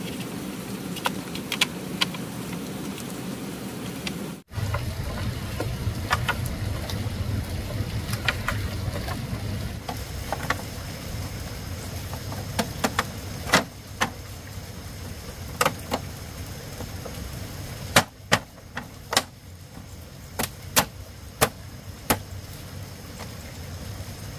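Split bamboo slats knocking and clacking against one another and the bamboo frame as they are laid in place, in scattered sharp knocks that come closer together near the end, over a steady low hum.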